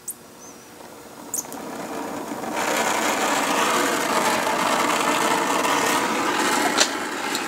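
Oxy-acetylene welding torch hissing, faint at first, then a steady loud hiss from about two and a half seconds in as the flame is played on the steel shift-lever fulcrum pin to build it up with weld.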